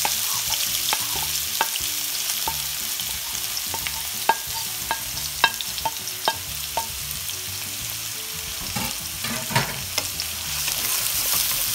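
Chopped red onions sizzling as they fry in hot oil in a metal pan, with scattered sharp ticks and the scrape of a wooden spatula moving them, rougher near the end.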